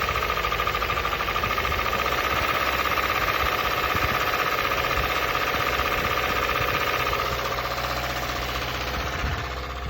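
2015 Subaru WRX's turbocharged 2.0-litre flat-four engine idling with a rapid, steady knock from inside the engine, with 100k miles on it. A steady high whine runs alongside and fades out about seven seconds in.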